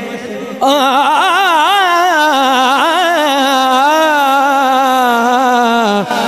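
A man's voice singing an Urdu naat, holding one long drawn-out note that wavers and turns in pitch, starting about half a second in and breaking off near the end.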